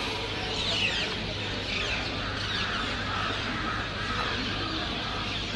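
Birds chirping in many short quick calls over a steady low hum.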